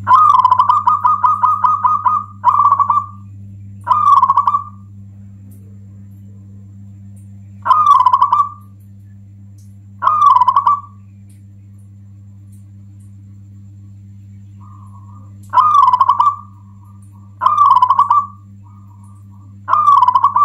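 Zebra dove (local perkutut) cooing: a rapid run of staccato notes for about two seconds, then short cooing phrases every few seconds, seven in all, over a steady low hum.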